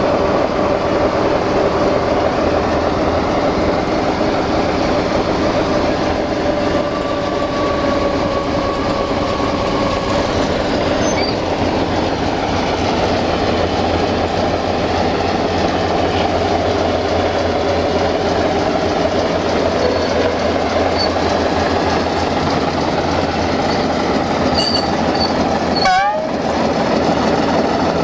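A railway train running steadily, a continuous mechanical noise with a held whining tone that drifts slowly in pitch during the first ten seconds. About 26 seconds in there is a short break in the noise with a few quick rising squeaks.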